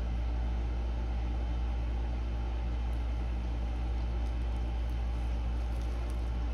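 Steady low machine hum from a motor or electrical appliance running continuously, with a few faint light ticks near the middle.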